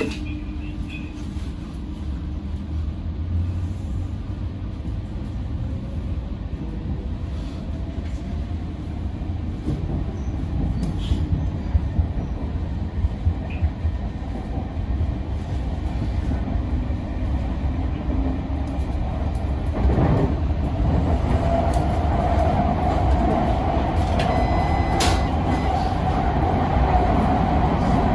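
Sotetsu 8000 series electric train pulling away and running, heard from inside the cab: a low rumble of wheels on rail that grows gradually louder as it gathers speed, with a few clacks over rail joints partway through and a steady higher whine joining about two-thirds of the way in.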